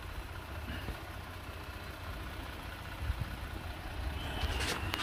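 Jeep engine idling steadily while it charges a truck's dead battery through jumper cables, a constant low rumble.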